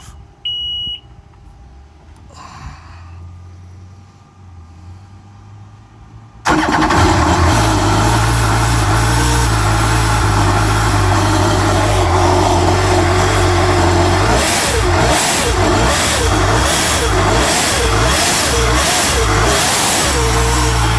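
Freshly built Kawasaki 300X engine (10.5 compression, on E85) being started for the first time. After a few quieter seconds it fires suddenly about six seconds in and runs loud. Through the middle it is blipped in a run of quick throttle surges, then settles back to a steady run near the end.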